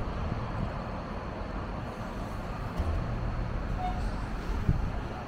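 Dieci telehandler's diesel engine running steadily.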